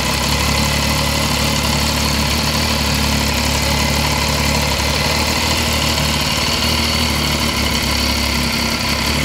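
Benelli TNT 1130 Cafe Racer's 1130 cc three-cylinder engine idling steadily.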